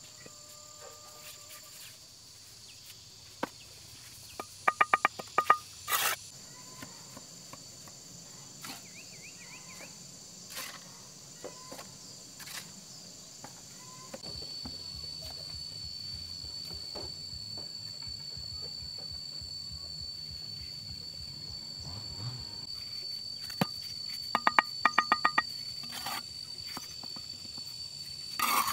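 Insects, crickets or cicadas, trilling steadily at a high pitch, with a stronger trill joining about halfway through. Scattered sharp knocks and two short rapid clicking bursts, one early and one near the end, stand out above them.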